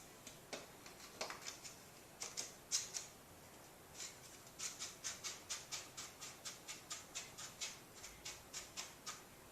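Light plastic clicks from the parts of a collapsible kayak paddle being handled and fitted together: a few separate clicks, then a steady run of quick clicks, about four a second, through the second half.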